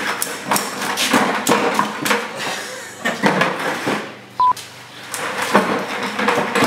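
Metal hooks and ratchet buckles of tangled tie-down straps clinking and rattling irregularly as the straps are pulled out of a plastic bucket. A short electronic bleep tone sounds once, about four and a half seconds in.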